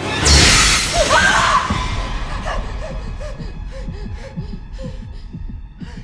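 Horror-film jump-scare sting: a sudden loud blast of noise with a shriek about a quarter second in, fading over the next few seconds into low, eerie sound.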